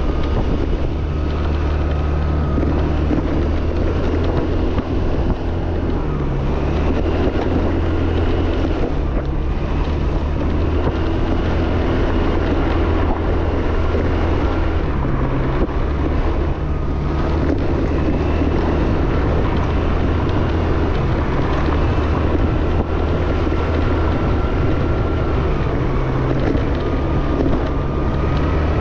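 Yamaha Fascino scooter's engine running steadily under way, with wind buffeting the microphone. The engine note dips and recovers slightly every few seconds.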